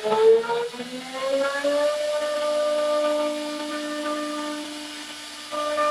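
CNC router spindle whining as its profile bit cuts a groove along a wooden board. The pitch rises over the first two seconds and then holds steady, with a lower steady hum beneath. It drops quieter for a couple of seconds and comes back louder near the end.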